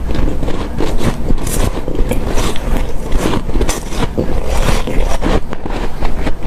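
Close-miked chewing of hard, powdery snow-type ice: a dense, continuous run of soft crunches and squeaks.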